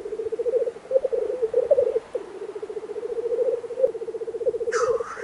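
Black grouse cocks' bubbling lek song: a continuous, rapidly pulsing, wavering cooing. Near the end a short hiss cuts in, the grouse's sneezing 'chuffing' call.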